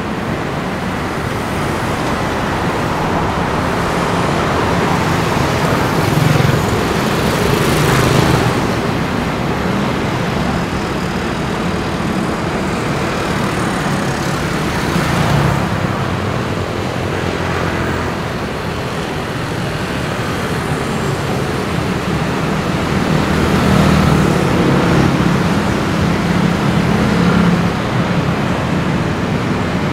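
Busy road traffic: a steady wash of engine and tyre noise, swelling several times as vehicles pass close.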